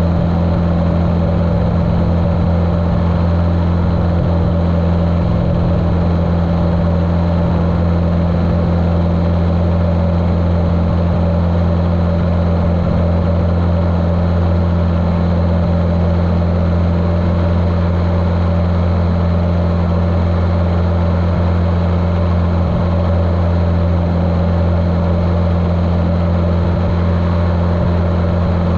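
Continental O-200 four-cylinder engine of a Cessna 150L running steadily in flight, a constant low drone heard muffled through a GoPro's waterproof case.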